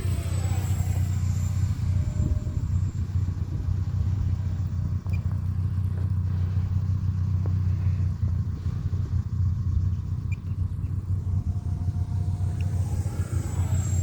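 High whine of a 64 mm electric ducted fan on an RC F-86 Sabre jet in flight. Its pitch drops as it passes about a second in and rises again as it comes back near the end, over a steady low rumble.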